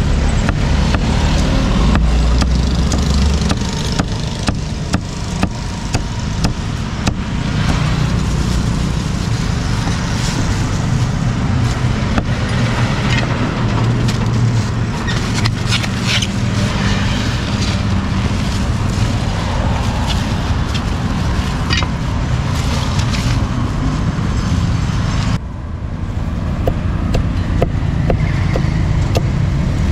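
Steady street traffic noise, with scattered sharp knocks of a meat cleaver chopping grilled pork on a thick round wooden chopping block.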